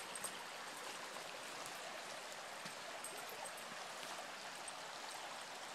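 Small forest stream running steadily, heard faintly as an even rush of water.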